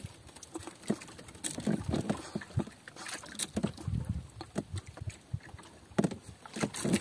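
Irregular knocks, taps and thuds in a small wooden fishing boat as a freshly landed squid and the jig line are handled.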